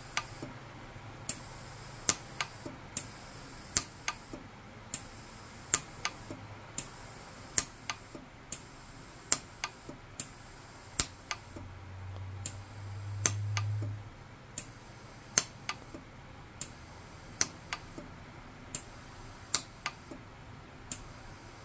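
Orion 150s micro TIG pulse arc welder firing short weld pulses onto a platinum ring, each pulse a sharp click, coming irregularly about once or twice a second as platinum filler wire is fused in to build up metal. A faint low hum swells briefly about twelve seconds in.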